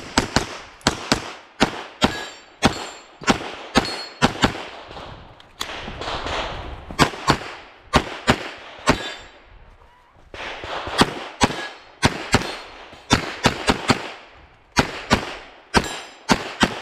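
Semi-automatic pistol with a red-dot sight fired rapidly during a practical-shooting stage: many sharp shots, mostly in quick pairs on each target, in strings with short breaks between them.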